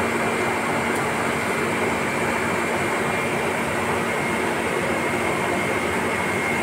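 Steady drone of heat-treatment shop machinery: an even rushing noise with a constant low hum and a thin high whine.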